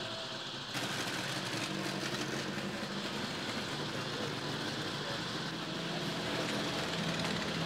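Car engine idling steadily, a constant low hum.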